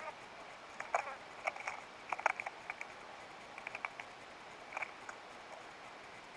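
A Steller's jay picking at a pile of peanuts in the shell: scattered dry clicks and short rattles of shells knocking together, bunched in the first few seconds, with a few more later.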